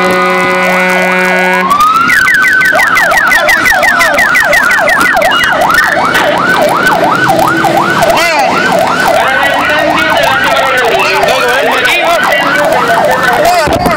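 Fire engine on an emergency run: a held horn blast cuts off about two seconds in as the electronic siren rises into a fast yelp, then settles into a slightly slower rising-and-falling warble.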